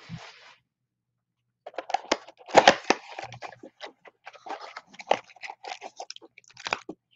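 A cardboard Panini Donruss Optic blaster box being torn open by hand and its foil card packs pulled out: a dense run of crackling, crinkling and tearing that starts about a second and a half in.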